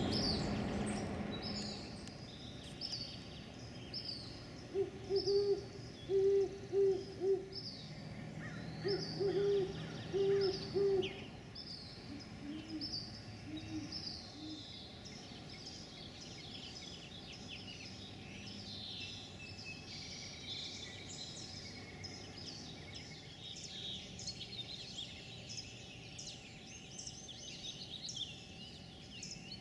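Great horned owls hooting: two runs of deep, evenly spaced hoots between about five and eleven seconds in, then three lower-pitched hoots soon after. Small birds chirp high and steadily throughout.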